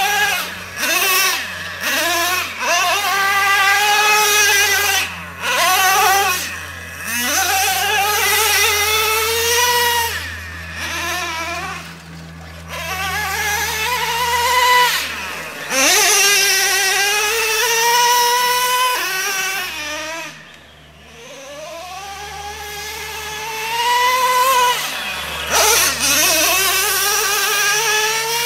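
Nitro RC truck's small glow-fuel engine revving hard again and again, each burst of throttle climbing sharply in pitch, then holding or falling away as the throttle is let off.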